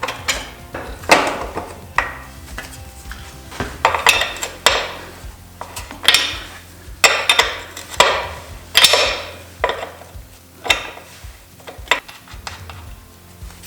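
Metal hand tools and bike parts clanking and rattling as they are handled: a string of irregular sharp clanks and short scraping rattles, the loudest in the middle.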